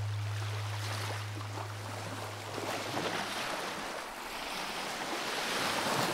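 Waves washing on a shore, the rush swelling about five to six seconds in, with a low steady hum that fades out over the first two seconds or so.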